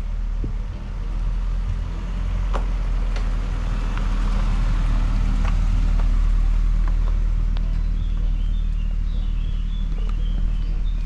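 VW Golf Mk1 Cabriolet's freshly rebuilt four-cylinder petrol engine, now fitted with a Weber carburettor, running steadily as the car is driven, with a steady low engine note and a few faint clicks.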